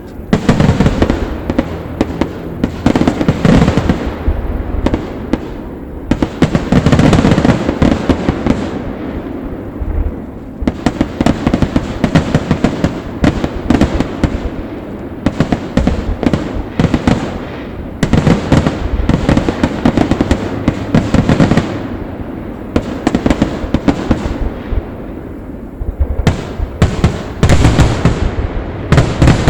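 Aerial fireworks going off in a dense, nearly unbroken barrage of booms and crackles, with short lulls around 6, 10, 17 and 25 seconds in.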